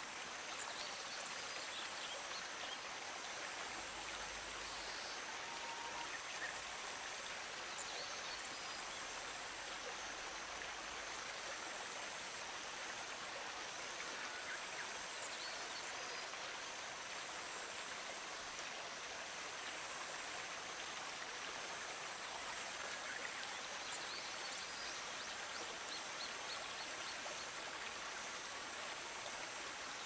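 Shallow stream babbling steadily as water ripples over a gravel bed and around a snag of debris, with a few faint, short high chirps above it.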